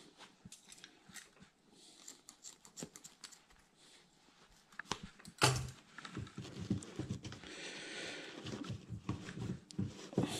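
Hands working a foam sponge and plastic filter parts: scattered clicks and rustles, a sharper knock about five seconds in, and a stretch of scratchy rubbing a little later as the sponge is pushed into the container.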